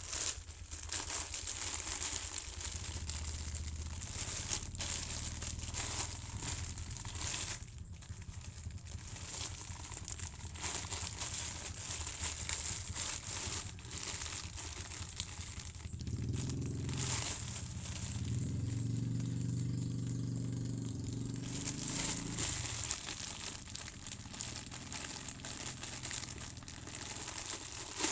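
Plastic packaging crinkling and rustling as a parcel is unwrapped, with a low hum underneath that grows louder for several seconds past the middle.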